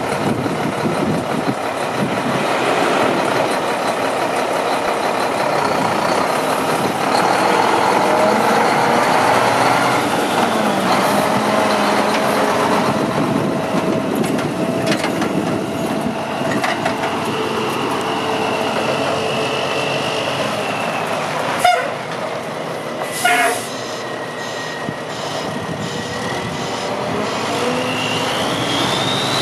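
1995 Mack CH613 tandem-axle day cab's diesel engine running, its pitch rising and falling as the tractor moves. There is a sharp click a little after two-thirds of the way in, then a brief hiss about a second and a half later. The engine revs up near the end as the truck pulls away.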